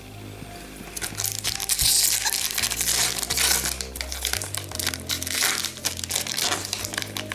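Foil wrapper of a hockey card pack being torn open and crumpled by hand: a dense crinkling crackle that starts about a second in and keeps up nearly to the end.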